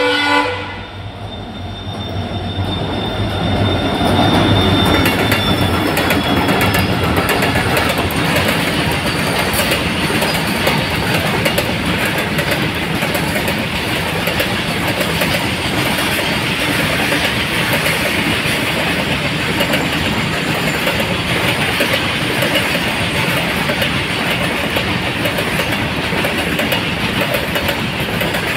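Twin WDG-4D and WDG-4 diesel locomotives (EMD two-stroke V16 engines) pass at speed with the tail of a horn blast in the first second, followed by a long BCN covered-wagon freight train rolling through, wagon wheels clattering steadily over the rail joints.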